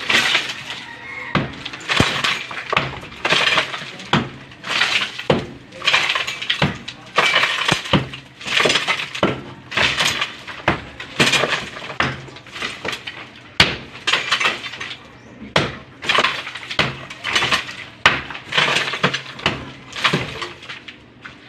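Sledgehammer blows on a concrete hollow-block wall, about one a second, each strike followed by the clatter of breaking block and falling rubble.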